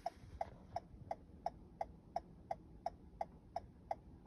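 Toyota Camry hazard flasher ticking at an even pace, about three clicks a second.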